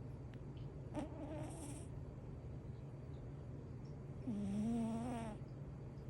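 Munchkin cat snoring loudly in its sleep: two snoring breaths about three seconds apart, a short one about a second in and a longer, louder one about four seconds in.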